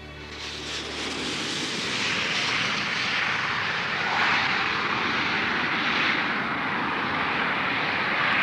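Airplane engine noise: a rushing sound that builds over the first two seconds and then holds steady and loud, as the last notes of music die away at the start.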